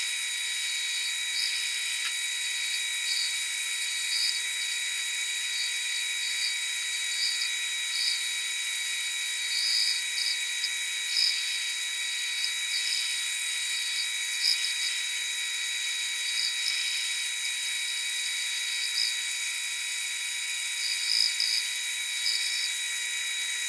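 Grizzly G4003 metal lathe running steadily with a constant whine while a shop-built ball turner cuts a ball. Irregular short bursts of tool chatter come from the cutter on the workpiece.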